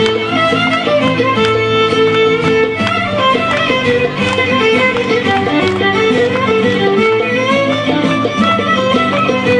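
Live Greek folk music for a syrtos dance: a violin plays the melody over plucked-string chord accompaniment, in a steady dance rhythm.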